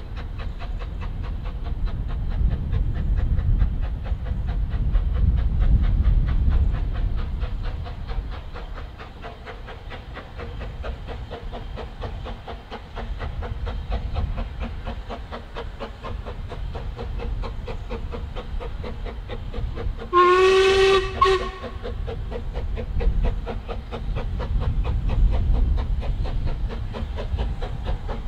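Narrow-gauge steam locomotive approaching at work with a steady, rapid chuff of exhaust beats over a low rumble, getting louder as it nears. About twenty seconds in it sounds its whistle once, a single clear note held for about a second and a half.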